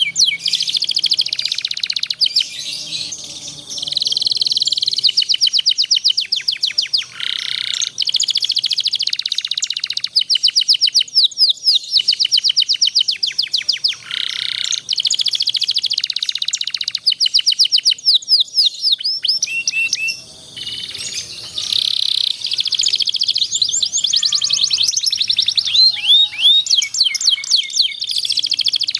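Domestic canary song: long, fast trills ('rolls') of rapidly repeated high notes, sung in runs of several seconds with brief breaks. This is the kind of tutor song played to young canaries to learn from.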